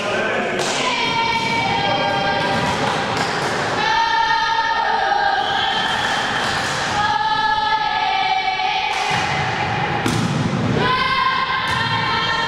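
A group of young voices chanting in long, drawn-out sung notes, several held for one to three seconds, with thuds in between.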